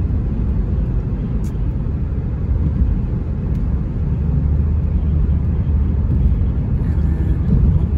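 Steady low rumble of a car driving on a highway, heard from inside the cabin: engine and tyre noise.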